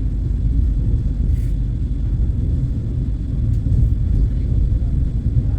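Steady low rumble of the Vande Bharat Express electric train set running along the track, heard from inside the coach.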